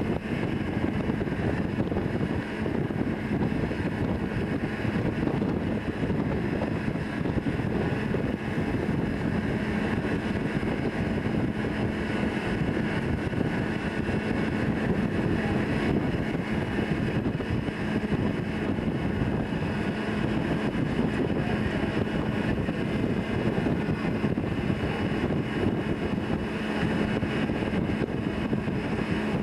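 Steady rush of wind and machinery noise on a ship's upper deck, with a constant low hum of the ship's machinery underneath.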